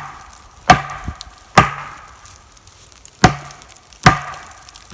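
A standing tree trunk being struck with a tool, four sharp knocks roughly a second apart and a fifth right at the end, each ringing briefly. The tree is being sounded to check its condition before felling, and the clear ring is taken as a sign of sound wood.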